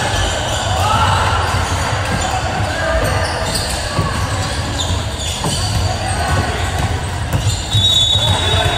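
Basketball game in a reverberant gym: a ball bouncing on the court with scattered thumps, over a steady wash of voices. A short high tone sounds about eight seconds in.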